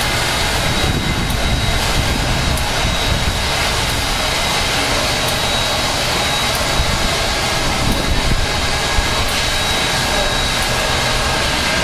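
Canadian National No. 3254, a 2-8-2 Mikado steam locomotive, standing under steam and hissing with a steady roar, a faint high whine over it.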